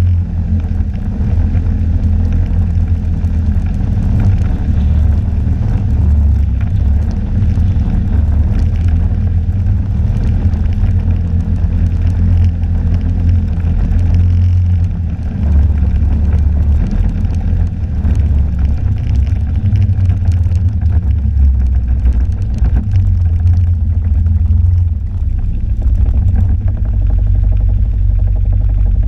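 Snowmobile engine running steadily at riding speed, with a heavy low wind rumble on the microphone.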